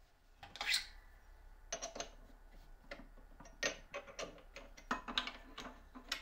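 Small metallic clicks and clinks at irregular intervals as a drill bit is handled at a drill press chuck, taken out and another fitted.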